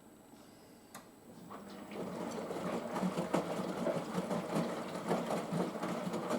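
Washing machine on its pre-wash: after a near-quiet pause with a single click, the drum starts turning about two seconds in, and wet laundry tumbles and sloshes with a busy, irregular splashing and knocking.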